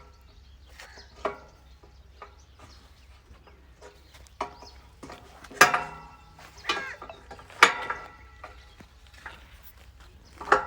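Several short animal calls, scattered and spaced apart over a low steady background, the loudest about halfway through and again two seconds later.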